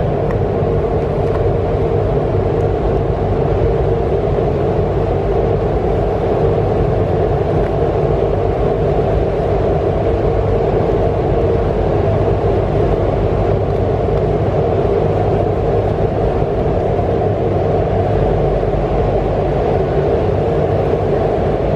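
A steady, loud mechanical drone with a low rumble underneath, unchanging throughout. No separate strokes of the brush stand out.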